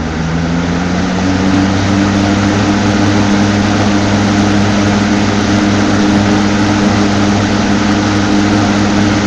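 Toastmaster 5336 three-speed box fan running on high, its motor still coming up to speed for about the first second before settling into a steady, loud hum over the rush of air from the blades.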